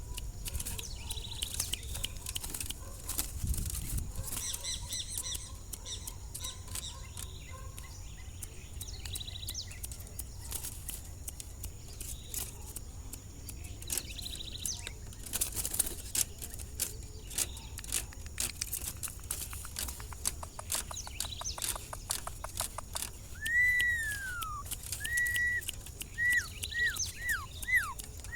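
Campo troupial (corrupião) fluttering and moving about, with scattered clicks, soft chirps and a fast run of clicks. Near the end it gives a string of loud, clear whistled notes, each dropping in pitch.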